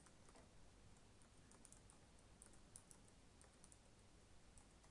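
Faint computer keyboard typing: a scatter of light key clicks.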